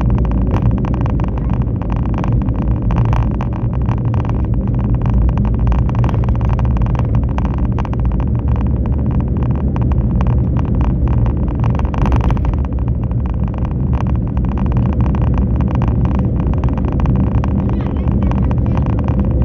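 A moving road vehicle's engine runs steadily at cruising speed, with road and wind noise around it. The level is loud and even, with a constant low hum and frequent uneven rustling bursts.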